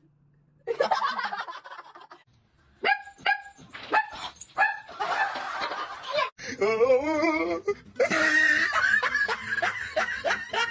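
A dog barks a few short times, then gives a long wavering cry, with people laughing.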